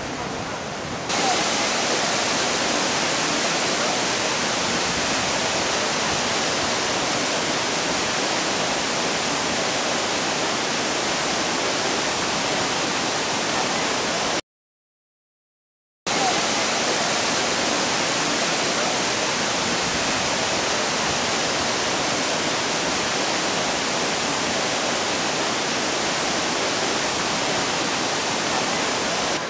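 Steady rush of the Blyde River's water pouring through rock potholes and over small falls in the gorge. It gets louder about a second in and breaks off completely for about a second and a half midway.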